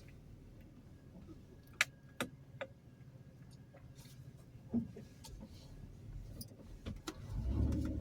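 Low steady hum with a few sharp clicks scattered through it, and a low rumble swelling near the end.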